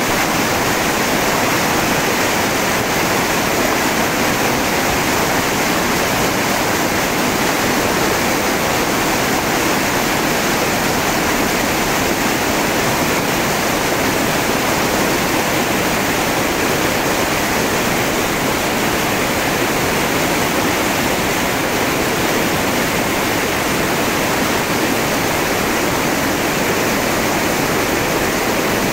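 Whitewater river rapids rushing over and around boulders: a loud, steady wash of water noise that does not let up.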